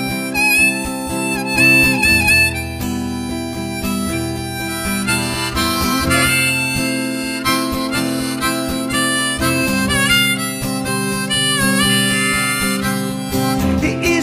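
Harmonica solo over acoustic guitar and bass guitar, an instrumental break between sung verses. The harmonica's high notes bend and waver above the held bass notes.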